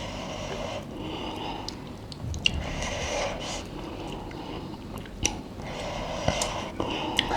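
Close-miked chewing of spicy instant noodles: wet mouth sounds with scattered sharp clicks.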